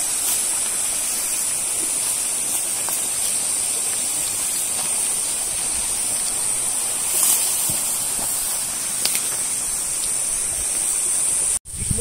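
Steady high-pitched buzzing of a cicada chorus in summer scrub, with a few faint clicks. It cuts out for a split second near the end.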